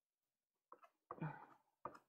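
Mostly near silence, with a few faint, short scratchy strokes of a pastel stick on Pastelmat card about a second in and a small click near the end.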